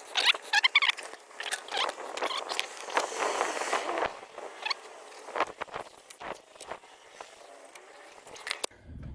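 Sped-up, pitched-up workshop sounds of brake work: rapid clicks, taps and clanks of tools and metal brake parts, with squeaky chattering between them.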